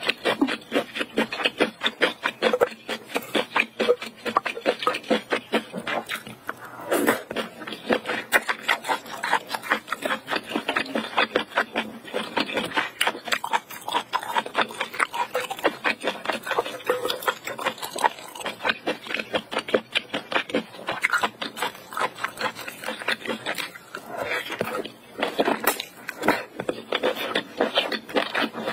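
Close-miked chewing of spicy octopus: a dense run of wet, sticky mouth clicks and smacks that continues throughout.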